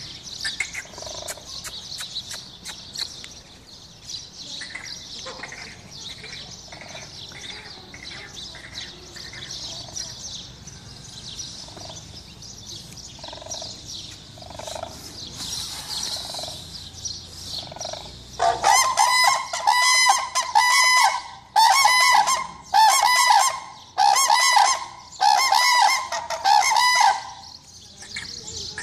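Cranes calling: soft, low calls about once a second at first, then about two-thirds of the way in a run of about seven loud trumpeting calls, each about a second long.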